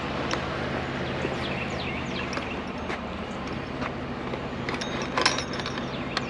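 Steady low hum of a vehicle engine idling, with scattered clicks and knocks, the loudest about five seconds in. Short high falling chirps come and go.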